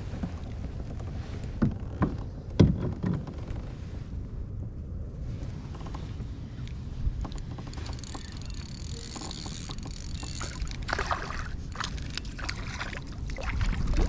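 Spinning reel being cranked, a high whirring whine from about eight to eleven seconds in, over a steady low rumble of wind and lapping water at the kayak. A few sharp knocks come in the first three seconds, and a small fish splashes at the surface near the end.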